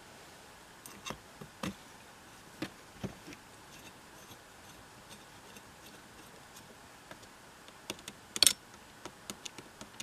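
Screwdriver clicking and scraping against a metal door latch as its screws are worked. There is an irregular scatter of sharp clicks and taps, with the loudest quick cluster about eight and a half seconds in.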